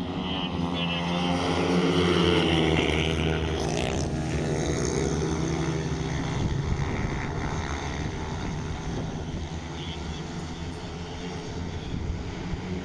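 A pack of long-track racing motorcycles, with single-cylinder 500 cc methanol engines, running flat out. It is loudest as they pass close about two seconds in, then drops to a steady drone as they race away down the far side of the track.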